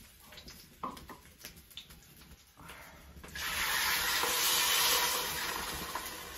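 A wooden spoon stirs and scrapes pork ribs frying in a clay cazuela with a few light knocks. About three seconds in, green salsa poured into the hot fat hisses loudly, and the sizzle slowly dies down.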